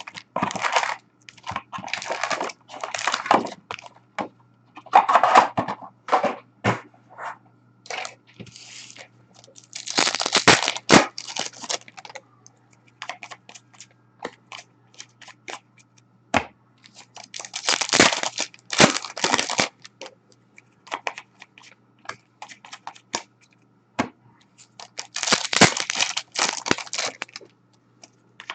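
Hockey card pack wrappers being torn open and crinkled, and cards handled, in about six bursts of tearing and rustling with small clicks of card handling between them.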